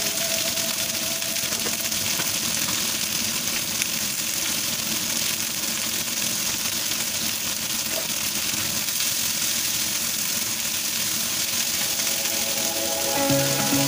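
Chicken skewers sizzling steadily in a hot cast-iron grill pan, a dense hissing crackle. Music comes back in near the end.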